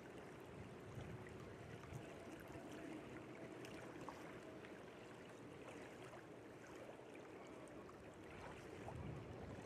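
Faint water lapping and trickling at the lake shore, small waves on choppy water, over a steady low background hiss.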